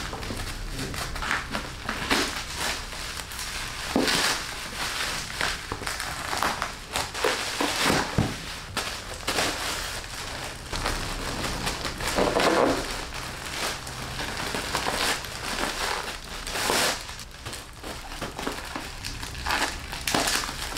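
Plastic bubble wrap and a plastic courier mailer bag crinkling and rustling as a parcel is handled and opened by hand, with irregular crackles.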